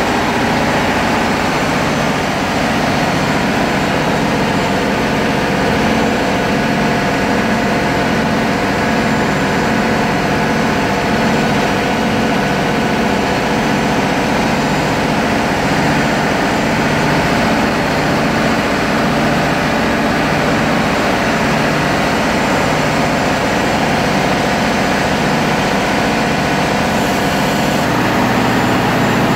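Steady, loud drone of diesel machinery running in a ship's engine room, with an even low throbbing; the tone changes slightly near the end.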